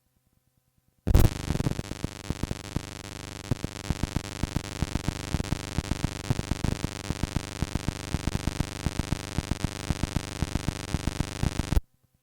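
Harsh, dense electronic music or noise with many sharp crackling clicks running through it. It starts abruptly with a loud hit about a second in and cuts off sharply near the end.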